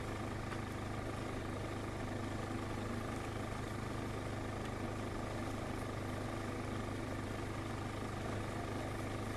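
An engine running steadily, a constant low hum under a hiss that does not change.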